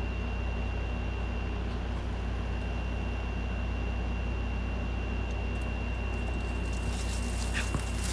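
Kool King window air conditioner running steadily: a constant low hum with a rushing fan noise and a thin, steady high-pitched whine over it.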